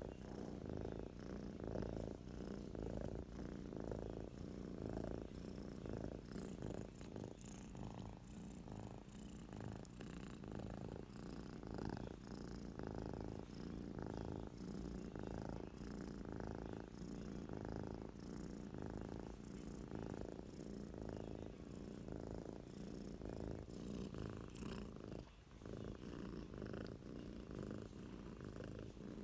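Domestic cat snoring in its sleep: a soft, low rattling sound that swells and fades with each breath in a steady rhythm, with a brief break near the end.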